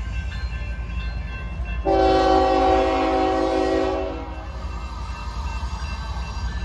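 Union Pacific freight locomotive's air horn sounding one long blast, a steady chord of several notes lasting about two and a half seconds, starting about two seconds in, over a steady low rumble.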